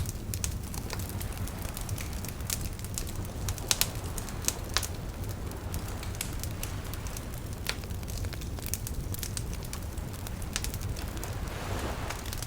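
Wood campfire crackling, with irregular sharp pops and snaps over a steady low rumble. A few louder pops come close together a few seconds in.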